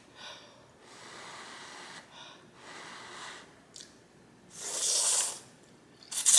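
Mouth noises of eating hot noodle soup: several hissing rushes of air through the lips, blowing on or slurping the hot noodles, with the loudest about five seconds in and a short sharp sound just before the end.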